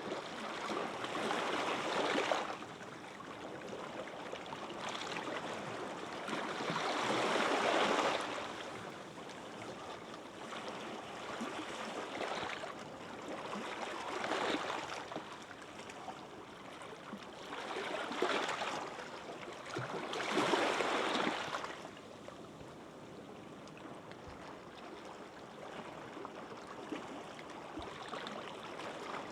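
Small, gentle sea waves washing onto a sandy beach, each wash swelling and falling away every few seconds, calmer near the end.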